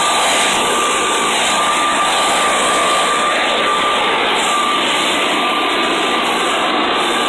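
Leaf blower running at full power with a steady loud rush of air and a high whine over it.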